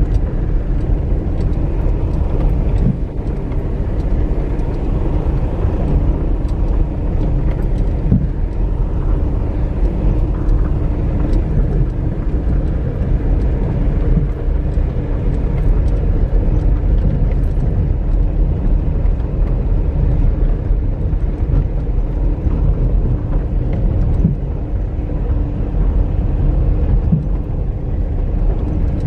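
Vehicle engine running steadily with low road rumble while driving slowly on a rough dirt track, with scattered knocks from bumps and ruts.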